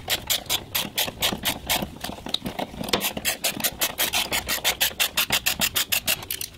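Hand ratchet with a socket on an extension loosening a 10 mm nut, its pawl clicking rapidly and evenly at about six clicks a second.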